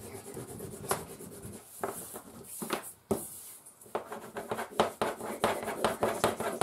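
Wax crayons scribbling on paper over a tabletop in quick scratchy back-and-forth strokes. The strokes pause briefly about three seconds in, then come faster.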